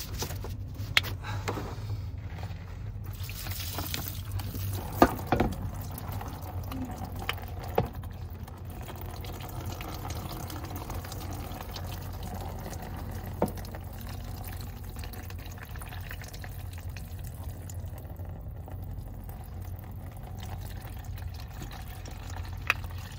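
Coolant pouring from a disconnected coolant pipe into a drain bucket in a steady stream. The coolant is thick and mixed with oil from a leaking transmission fluid cooler. A few sharp knocks sound against the steady flow.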